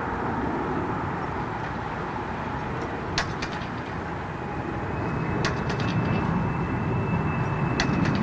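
Jet airliner engines running as a steady rumble that grows louder toward the end, with a thin steady whine joining about three seconds in. Three short clusters of clicks sound over it.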